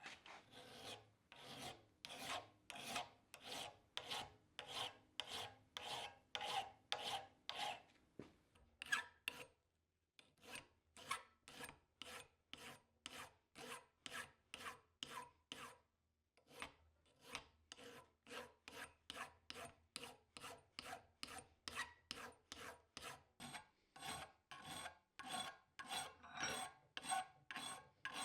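Hand file rasping back and forth on a forged steel knife blade in steady strokes, about two to three a second, with two short pauses.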